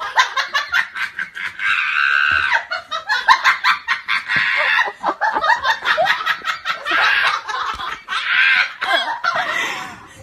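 A person laughing hard and almost without pause, in quick high giggling breaths.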